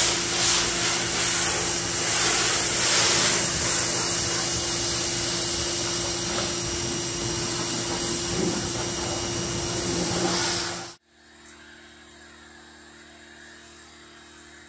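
Pressure washer running with a foam cannon spraying soap onto a boat hull: a loud hiss of spray over a steady motor hum. It cuts off suddenly about eleven seconds in, leaving only a faint steady hum.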